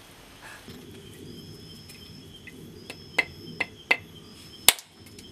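A machete striking a husked coconut held in the hand: four sharp knocks in the second half, the last the loudest, as the nut is cracked open. Insects trill thinly in the background.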